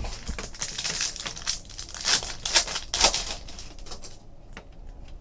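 Foil wrapper of a trading-card pack crinkling and tearing as it is ripped open by hand, a run of sharp rustles that is loudest over the first three seconds and then dies down.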